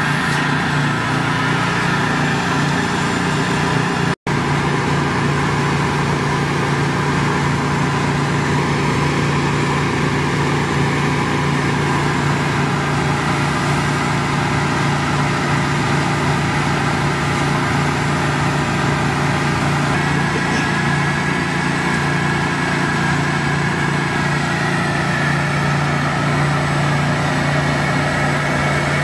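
Steady running of the ThawRig's machinery: the Honda gas engine of the hot-water pressure washer at a constant speed, together with the vacuum tank system suctioning the meltwater up the hose. The sound cuts out for an instant about four seconds in.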